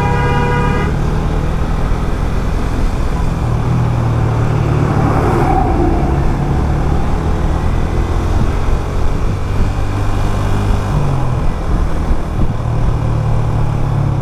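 Motorcycle engine running under way in road traffic, its note shifting a few times with the throttle. A vehicle horn sounds briefly at the very start.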